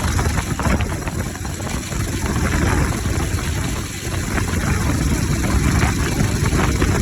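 Bajaj Pulsar RS 200 motorcycle's single-cylinder engine running with its air filter removed.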